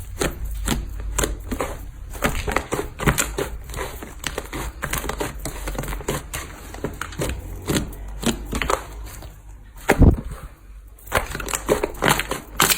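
Slime being squeezed and pressed by hand, giving dense, irregular crackling and popping, with one louder, deeper squish about ten seconds in.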